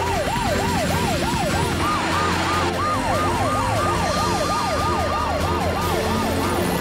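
Two cartoon emergency-vehicle sirens wail in quick up-and-down sweeps, about two or three a second. The second, higher siren joins about two seconds in.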